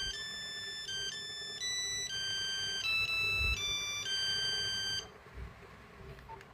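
Nokia 8250 monophonic ringtone playing a melody of single electronic beeping notes, one note at a time, which cuts off about five seconds in.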